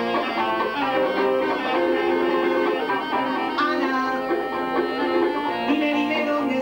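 Live band music: a clarinet playing a melody of held and moving notes over other instruments accompanying.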